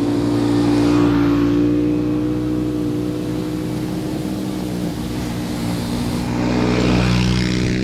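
Motor vehicle engine running at a steady speed while driving, with a steady hum and swells of louder rushing noise about a second in and again near the end.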